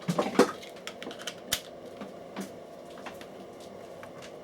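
Plastic clicks and knocks as a cheap projector is handled and its 12-volt adapter plug is pushed in: a quick cluster of clicks at the start, a sharp click about a second and a half in, then a few faint ticks, over a steady low hum.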